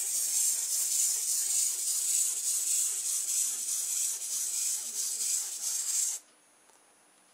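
The clockwork motor of a laser-cut plastic Diplodocus kit whirring steadily as the wound-up toy walks on a wooden tabletop, its moving joints freshly oiled. The whirr cuts off suddenly about six seconds in.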